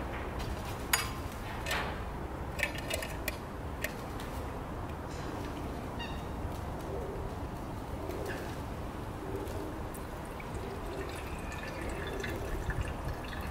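A glass bottle is set down on a table with a sharp click, followed by a few light metal clinks as the lid of an aluminium mess tin is handled. About eleven seconds in, water starts pouring from a plastic bottle into the aluminium tin.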